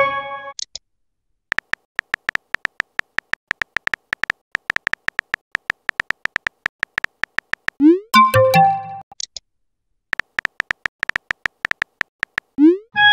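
Phone keyboard typing clicks, several a second with brief pauses. About eight seconds in, and again near the end, comes a message-sent sound: a quick rising swoop followed by a few short chime notes.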